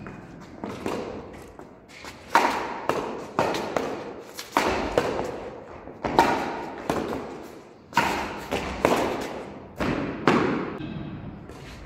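Badminton rackets striking a shuttlecock back and forth in a rally: sharp hits every second or so from about two seconds in, each followed by a short echo off the courtyard's walls.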